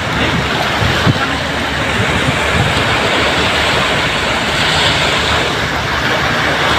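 Small waves breaking and washing up on a sandy shore, a steady rush of surf, with wind buffeting the microphone.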